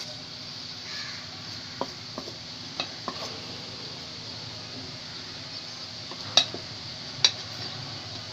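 Wooden spoon stirring sliced bitter gourd and potato in an aluminium pot, with scraping and several sharp knocks of the spoon against the pot, the two loudest knocks about a second apart near the end. A steady hiss runs underneath.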